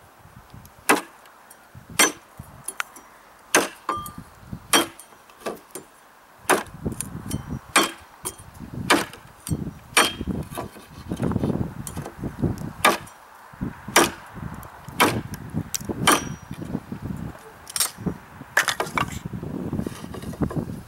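Cold Steel Bushman knife chopping into a 2x2 wooden board: sharp blade strikes into the wood about once a second.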